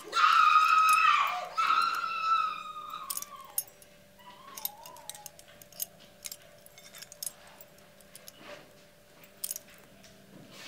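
A person's long, high-pitched cries for the first three seconds or so, then scattered light metallic clinks of a chain being moved, with a faint steady hum underneath.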